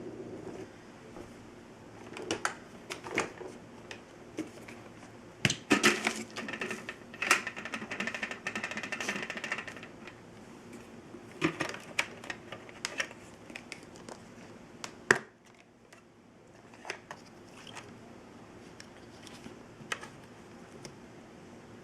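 Dyson DC15 upright vacuum switched off, its motor hum cutting out within the first second. This is followed by scattered plastic clicks, knocks and rattles as the machine is handled, busiest a few seconds in, with one sharp knock about midway.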